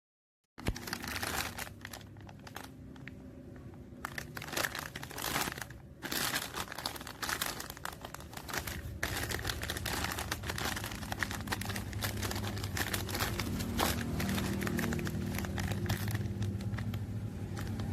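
Plastic packaging crinkling and rustling as it is handled, in irregular crackly bursts. A low rumble builds up underneath in the second half.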